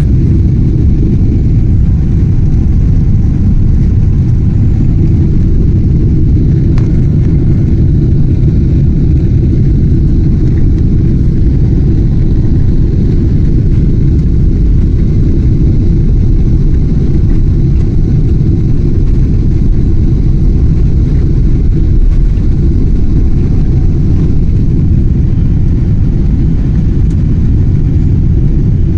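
Airliner taking off: a loud, steady low rumble of engine and airflow noise.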